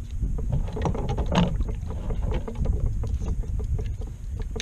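Small waves slapping against the hull of an Ascend FS128T fishing kayak in a run of short, irregular knocks over low wind rumble on the microphone. A louder splash comes about a second and a half in.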